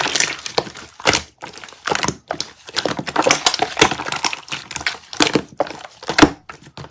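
Water jelly slime being squeezed and worked by hand, giving a quick, irregular run of clicks and crackles, the loudest one near the end.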